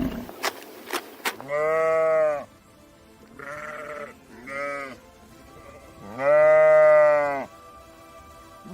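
A farm animal bleating four times: a long, loud bleat about a second and a half in, two short, fainter bleats, then another long, loud bleat near the end. A few sharp clicks come just before the first bleat.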